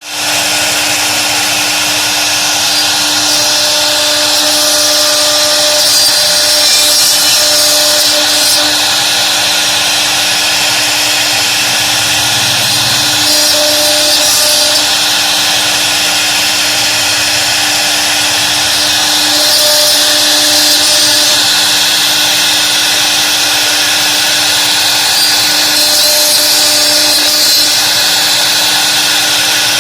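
CNC router spindle running steadily while carving wood: a constant whine with a high, hissing cutting noise that grows louder every several seconds as the bit moves through the wood.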